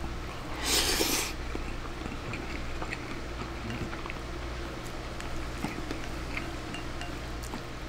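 Eating sounds from a mouthful of egg-on-rice: a short loud breathy rush of air through the mouth about a second in, then soft chewing and light clicks of chopsticks against a ceramic bowl, over a low steady hum.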